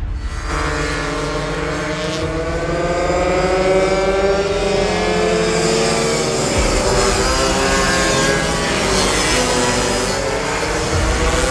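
A pack of racing pocketbikes with small two-stroke engines, their high engine notes rising and falling in pitch as the bikes accelerate and close in. Several engines are heard at once, at different pitches.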